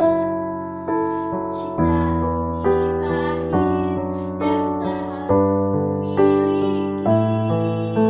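Keyboard playing sustained chords, a new chord struck about once a second, with a girl singing the melody over it.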